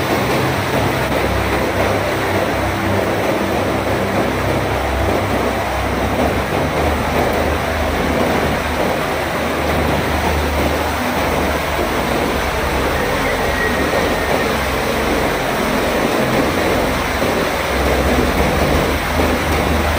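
Muddy floodwater rushing past in a steady, loud roar: a flash flood running across a road.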